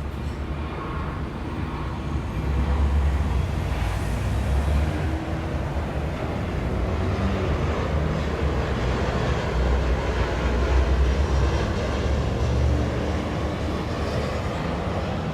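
Steady low rumble of downtown city traffic, swelling as heavier vehicles pass a couple of seconds in and again around ten seconds in.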